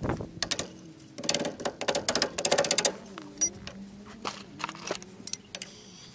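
Metal hand tools clinking and rattling against the brake caliper in quick runs of rapid clicks, then a few single clinks, as a front disc-brake caliper is put back together after a pad change.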